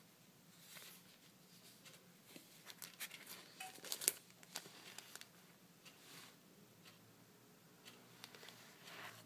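Faint rustling and crinkling of a clear plastic sticker packet and card paper being handled, with a few light clicks and taps, the sharpest about four seconds in.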